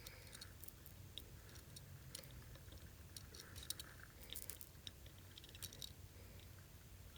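Faint scattered ticks and small crackles from soldering a small circuit board onto the back of a PS5 controller's joystick potentiometer, over a low steady hum.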